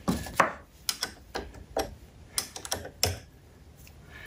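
Sharp metallic clicks and taps, about a dozen over three seconds and loudest at the start, then quieter. They come from a washer and bolt being fitted by hand to the quill return spring housing of a 1937 Walker Turner drill press, and a wrench being set on the bolt.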